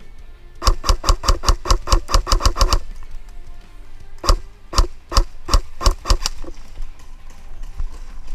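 Airsoft electric rifle firing: a quick string of about fifteen shots, then a pause and about six slower, spaced shots.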